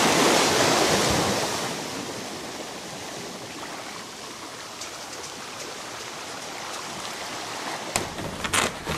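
A steady rushing noise, loudest in the first second or so, then easing to a softer even hiss; a few sharp clicks come near the end.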